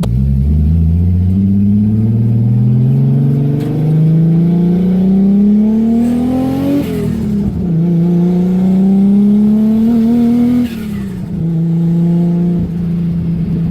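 Single-turbo RB26 twin-cam inline-six pulling under part throttle, its note rising steadily. It dips at a gear change about seven seconds in and climbs again. Near eleven seconds the throttle comes off, with a short falling whoosh, and the engine settles to a steady cruise.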